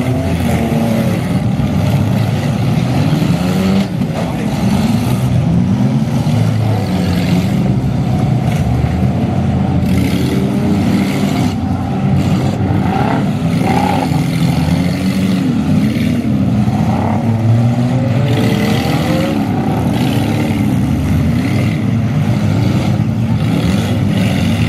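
Engines of several compact demolition-derby cars running and revving at once, their pitches rising and falling over each other, with a few short bangs of cars colliding.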